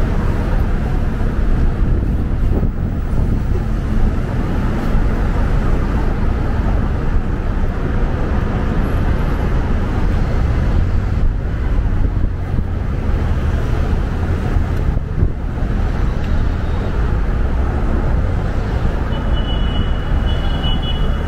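Steady city street traffic: passing cars and other vehicles making a continuous low rumble, with a brief high-pitched tone near the end.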